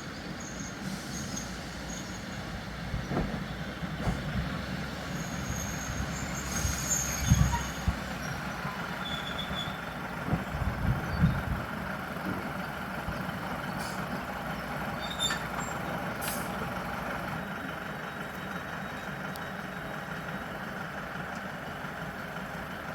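Diesel train engine running steadily, with brief high squeals and a few dull thumps about 7 and 10 to 11 seconds in.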